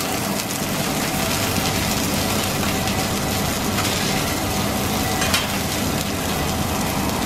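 Beef patties and onions sizzling on a hot flat-top griddle, a steady frying hiss over a low hum, with a metal spatula clicking and scraping on the griddle a few times.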